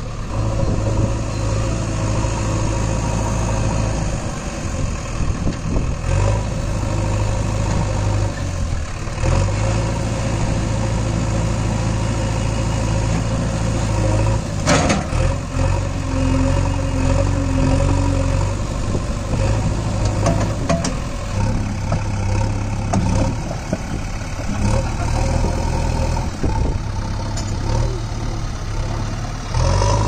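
JCB 3DX backhoe loader's diesel engine running, its note strengthening and easing as the backhoe arm, stabiliser legs and loader bucket are worked. A single sharp metallic clank comes about halfway through.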